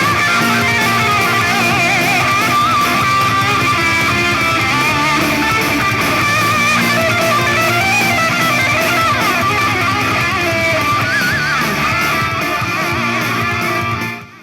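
Loud rock music with electric guitars played through a JBL Flip 6 portable Bluetooth speaker, picked up by a lapel microphone set beside it. The music drops away sharply near the end.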